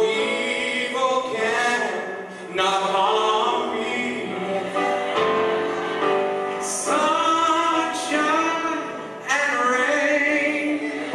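Gospel music with a choir singing, in long swelling phrases.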